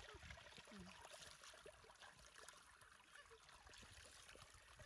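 Faint splashing and trickling of shallow water as a hand scoops and flicks water in a rice-field channel.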